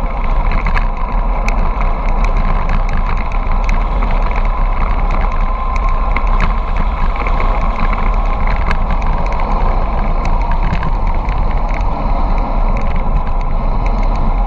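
Wind rushing over the microphone of a bicycle-mounted camera on a fast downhill ride, a steady rumble mixed with tyre noise on the asphalt and scattered sharp clicks and rattles.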